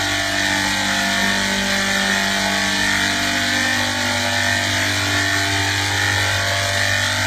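Steady machine drone: a constant low hum with a hiss over it, unchanging in level or pitch.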